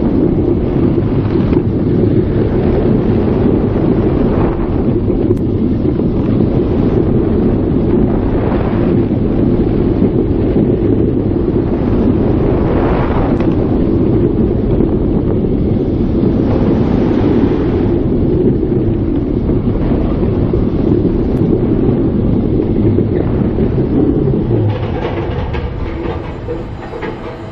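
Intamin steel roller coaster train rumbling along its track at speed, with wind buffeting the on-ride microphone in brief gusts. Near the end it slows and the rumble falls off.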